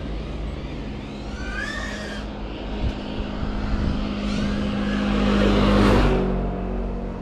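FPV racing quadcopter flying past, its motors and propellers whining with the pitch rising and falling as the throttle changes. It grows louder to a peak about six seconds in, then falls away.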